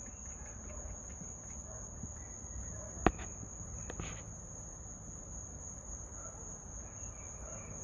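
Crickets chirping steadily as a constant high-pitched trill, with a single sharp click about three seconds in and a softer click about a second later.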